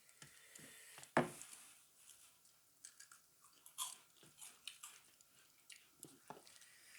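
Close-up eating sounds: soft chewing and small wet clicks of a mouthful of rice and dal, with one sharper click about a second in.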